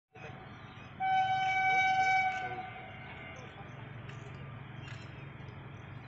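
Approaching train sounding its horn: one steady blast of just over a second, several notes together, that trails off. A low steady rumble continues underneath.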